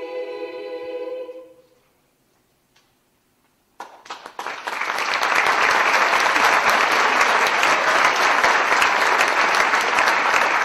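A girls' choir holds its final chord, which fades out about a second and a half in. After about two seconds of silence, the audience breaks into applause that builds quickly and keeps going.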